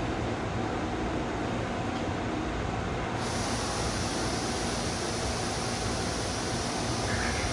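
Steady hum and hiss of a stationary 189 series electric train's onboard equipment at a platform, with a higher hiss that joins abruptly about three seconds in.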